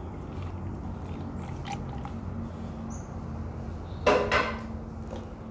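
Milk pouring from a paper carton into a glass jug, a low, uneven gurgle over a steady hum. About four seconds in, after the pour stops, there is a short knock.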